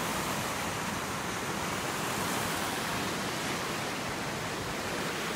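Rushing water of a small waterfall and rapids pouring over rocks in a river, a steady, even rush.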